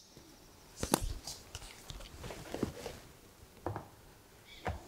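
Paper being handled as a notebook's pages are leafed through: a few short, soft rustles and light taps spaced about a second apart.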